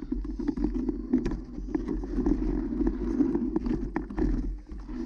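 Mountain bike rolling down a rough dirt trail: steady tyre rumble with frequent clicks and rattles from the bike over bumps.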